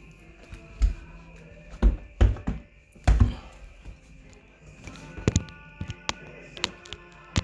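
Background music, with a run of heavy thumps in the first few seconds and sharper taps and clicks later: a sheep's hooves on a hard indoor floor as it walks about.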